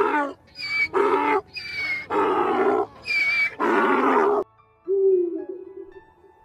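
Wild ass braying: hee-haw cycles of short, high whistle-like intake notes alternating with longer, rougher, lower outward notes, stopping about four and a half seconds in. A shorter, lower call with a slight downward slide follows about a second later.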